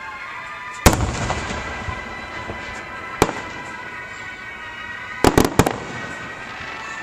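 Aerial fireworks shells bursting: one loud bang about a second in with a rumbling echo after it, a single sharper bang a couple of seconds later, and a quick cluster of three or four bangs near the end.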